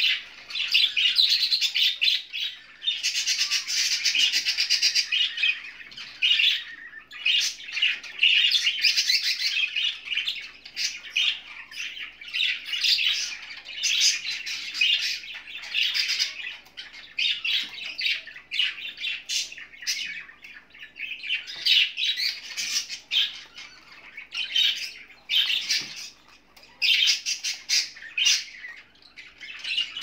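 Budgerigar calls: raspy squawking and chirping in bouts of a second or two, with short pauses between them.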